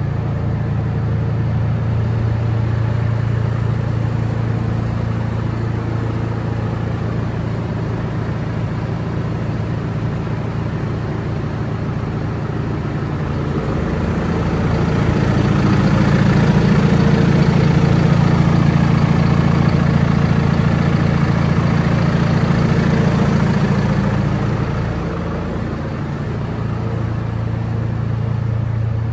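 John Deere 6110R tractor's diesel engine running steadily, working harder and louder for several seconds in the middle before easing back.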